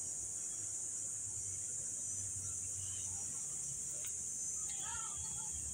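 A steady, high-pitched insect chorus of tree-dwelling insects such as cicadas or crickets, buzzing without a break.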